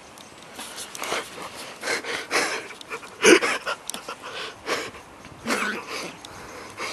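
Dog digging and nosing at a hole in the dirt: a string of short, breathy bursts, the loudest a little over three seconds in.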